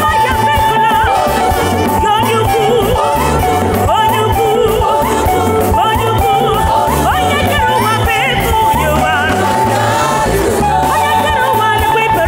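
Gospel praise music: a voice sings wavering, sliding phrases over a held keyboard note and a repeating bass line.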